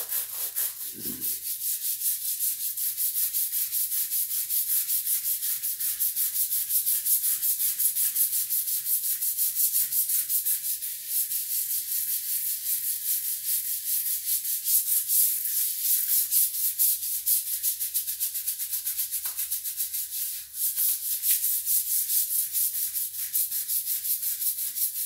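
Long-handled floor scrub brush scrubbing ceramic floor tiles in rapid back-and-forth strokes, a continuous scratchy rasp, working oxalic acid cleaning powder over the crusted tiles and grout. The scrubbing pauses briefly about 20 seconds in and stops abruptly at the end.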